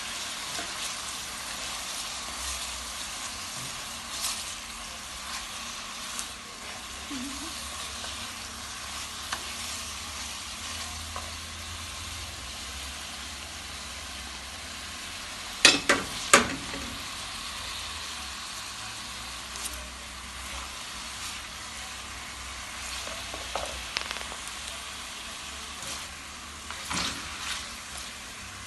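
A pan of saltfish, tomato and carrot sizzling steadily while spaghetti is stirred into it, with scattered small scrapes and clicks. Two sharp knocks a little past the middle are the loudest sounds.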